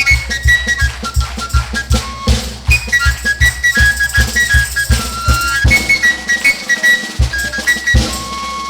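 Overtone flute with no finger holes playing a melody of held notes that jump between the pitches of its overtone series, over a fast, steady drum beat. The drum stops about two-thirds of the way through, and the flute carries on alone.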